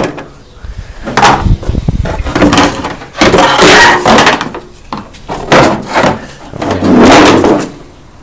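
Hard plastic body panel of a Honda TRX300EX quad being wrestled off the frame by hand: a series of loud knocks and clatters, some short and some dragging on for about a second.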